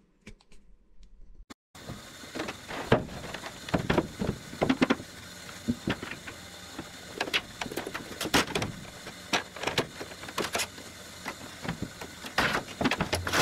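An aluminium fuel tank being handled into a wing bay: irregular knocks and clatter of metal against metal over a steady hiss, starting after a second or so of near silence.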